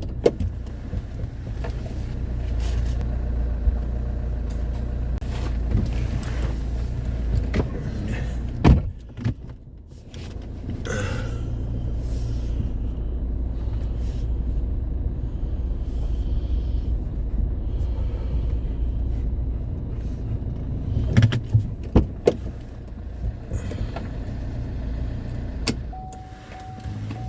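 A car's engine running, heard from inside the cabin as a steady low hum, with a few sharp clicks and knocks. A steady tone comes in near the end.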